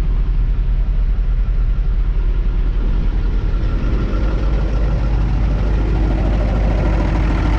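Hino truck's diesel engine idling steadily, louder and clearer near the end. The air compressor is working, but the brake air pressure isn't building; the owner suspects a frozen air line.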